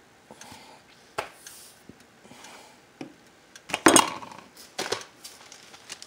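Kitchen clatter: scattered clinks and knocks of utensils against cookware, with a louder cluster of knocks about four seconds in.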